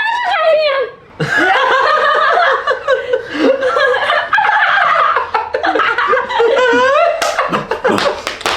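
Loud laughter, with a brief break about a second in.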